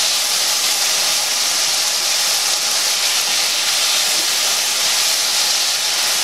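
Smoked chicken wings sizzling in butter and melting jalapeno pepper jelly in a hot stainless steel pan: a steady frying hiss.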